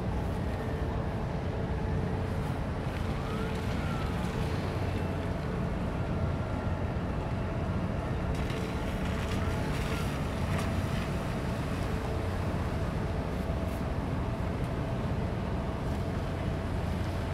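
Steady low rumble and hum of a large container ship passing close by, mixed with wind on the microphone.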